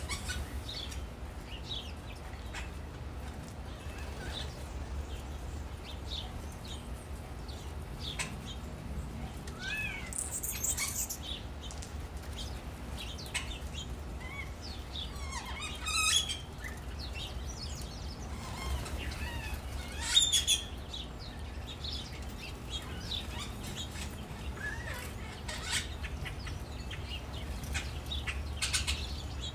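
Small birds at a bird bath chirping, with many short chirps and quick wing flutters and a few louder bursts of fluttering, over a steady low rumble.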